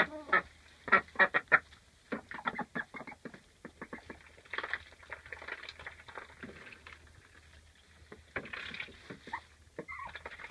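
Domestic duck quacking in many short, quick calls among hens, busiest in the first few seconds and then coming in scattered bursts.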